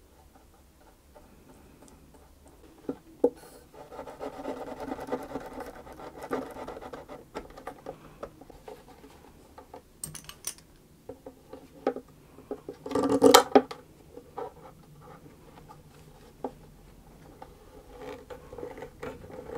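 Wood scraping and rubbing as a glued violin neck is pressed and worked into its mortise in the body, with scattered small knocks and clicks. A louder scrape-and-knock comes about two-thirds of the way through as a bar clamp is set against the neck and body.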